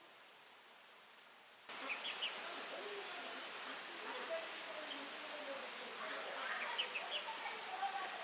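Outdoor insect chorus with a steady, high, thin whine. Short faint chirps come in twice, and the background gets louder and fuller about two seconds in.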